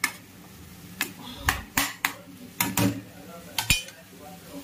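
Metal spoon stirring and scraping mutton and greens in a kadai, clinking against the pan in about eight irregular strokes, with the loudest clank near the end.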